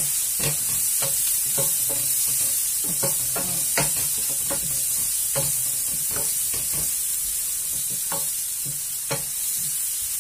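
Chopped leeks sizzling steadily in oil in a stainless steel frying pan, while a wooden spoon stirs them, scraping and knocking against the pan in irregular strokes about once or twice a second.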